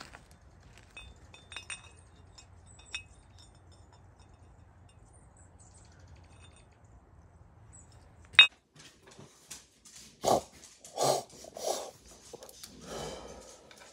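Two forged steel axe heads clinking lightly against each other, a few short ringing taps a couple of seconds in. A sharp click a little past the middle, then a run of dull knocks and handling noise.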